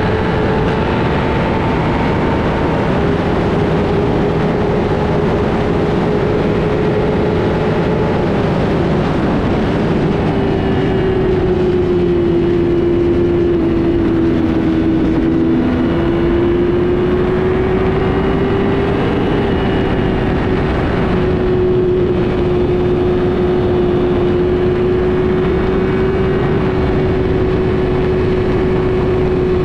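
Motorcycle engine running at a fairly steady pitch that drifts slowly up and down, over a loud constant noise.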